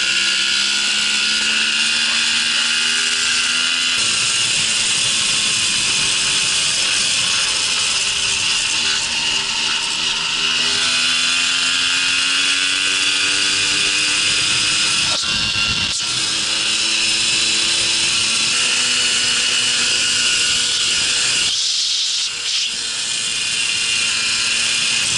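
Small single-cylinder two-stroke engine of a Babetta moped running under way, its high buzz rising and falling in pitch as the throttle changes, with a brief dip about 22 seconds in.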